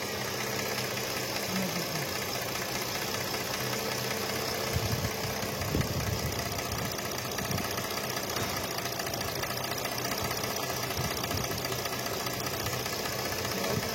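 Mercedes-Benz V6 engine idling with a misfire ('engine missing'), which the mechanic traces to failed ignition coils.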